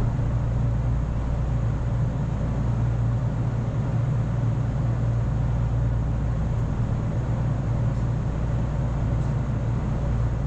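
Inside a 455-series electric multiple-unit train pulling out of a station: a steady low hum and rumble of the train's motors and running gear.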